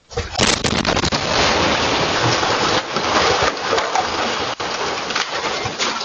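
A house exploding: a sudden blast about a quarter second in, then several seconds of loud rumble and crackling clatter as debris rains down.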